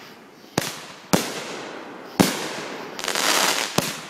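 Aerial fireworks bursting overhead: four sharp bangs, each trailing off in an echo. A short rush of crackling comes about three seconds in.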